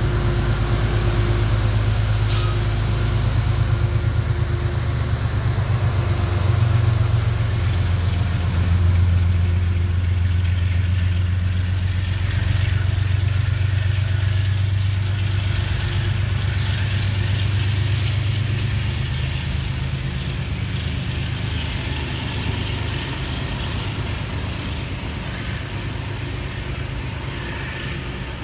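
Amtrak diesel locomotive engine running close by, a deep pulsing rumble. About halfway through, the hiss and clatter of a Metro-North train's wheels rolling past joins in, and the engine rumble then fades gradually.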